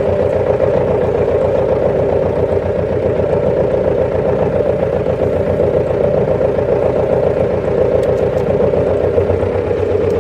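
Tractor engine running steadily under a constant load, with an even low throb.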